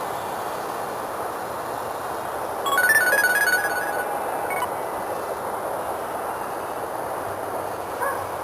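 A phone's short electronic melody: a quick run of beeping notes stepping up and down, lasting about a second, about three seconds in, over a steady noisy hum.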